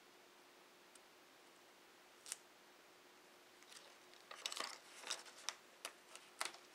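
Protective plastic film being peeled off the front of a new laptop LCD panel: a single click about two seconds in, then a run of crackles and sharp ticks over the next few seconds.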